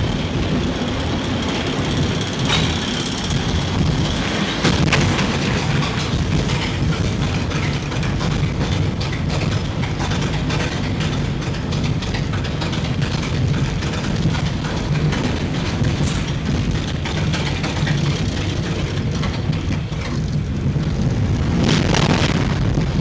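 Steel roller coaster car on the WildCat climbing its lift hill: a steady rumble with a rapid run of rattling clicks from the lift and track, growing louder near the end as it nears the top.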